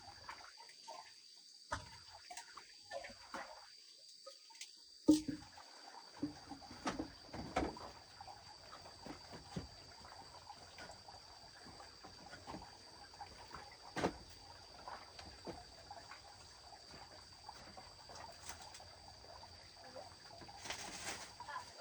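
Scattered small clicks, knocks and rustles, the sharpest about five seconds in, over a steady faint high hiss.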